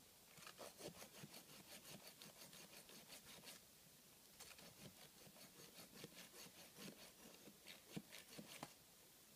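Faint hand saw cutting through a log in quick back-and-forth strokes, about three or four a second, in two runs with a short pause about three and a half seconds in.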